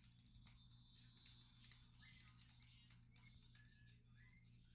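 Near silence: a faint steady low hum with scattered faint clicks and a few brief, faint high squeaks.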